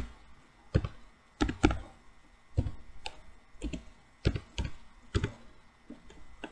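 Computer keyboard being typed on: about a dozen separate keystrokes, irregular and unhurried, one or two a second.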